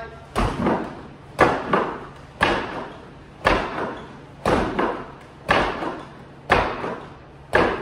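Eight straight-punch (seiken) strikes on a makiwara striking post, evenly spaced about one a second, each a solid thud with a short echo after it.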